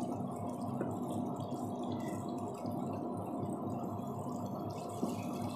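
Thick chicken roast gravy simmering and bubbling in a frying pan, with a wooden spatula turning the pieces now and then, over a steady low hum.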